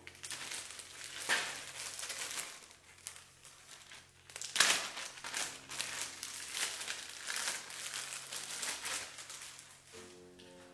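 Clear plastic packaging crinkling and crackling as gloved hands handle it. The crackle is louder about a second in and again near the five-second mark.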